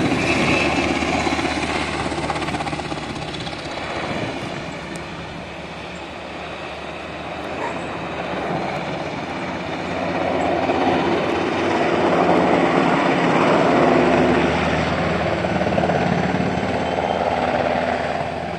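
Sikorsky UH-60 Black Hawk helicopter flying low overhead, a steady rotor and turbine sound. It fades somewhat a few seconds in and grows louder again from about ten seconds in.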